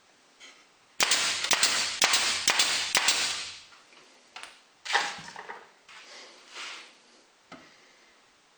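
Power sander run for about two and a half seconds, sanding the ridges at the plywood box's corners flush, with sharp clicks throughout. A few shorter scuffs and knocks follow as the piece is handled.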